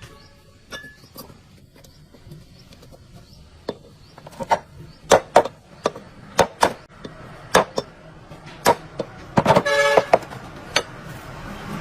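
A series of sharp, irregular knocks and clicks, the loudest about five seconds in, with a brief pitched tone about ten seconds in.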